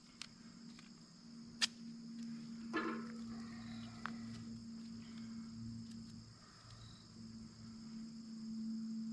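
Faint, steady chirring of crickets, with a few sharp clicks and a brief rustle. A low steady hum comes in after about a second.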